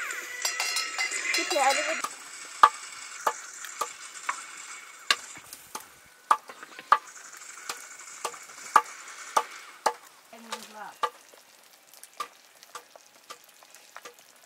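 Food frying in a pan, sizzling loudest in the first two seconds and then more softly, while a utensil stirs it and knocks sharply against the pan about every half-second to a second.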